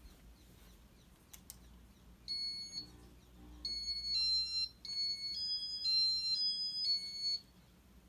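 Casablanca ceiling fan's electronic control board sounding its audible tones. One beep is followed by a run of beeps that step up and down in pitch like a short tune. Two sharp clicks come just before.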